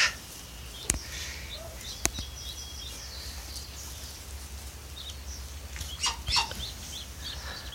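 Muscovy ducklings peeping: scattered short, high-pitched peeps in quick runs, a few louder ones about six seconds in. Two sharp clicks come about one and two seconds in.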